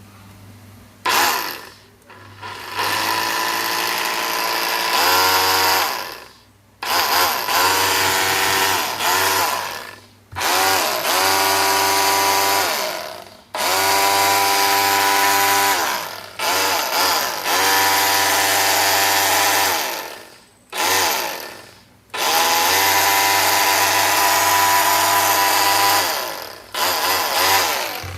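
Makita 14.4V cordless drywall cutter's motor run in about eight bursts of one to four seconds, each one a rising whine as it spins up and a falling whine as it winds down between trigger pulls.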